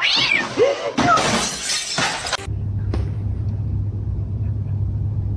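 A loud shattering crash lasting about a second and a half, which cuts off suddenly and gives way to a steady low hum.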